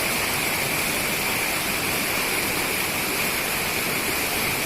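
Steady rushing of a waterfall, water falling and splashing without pause.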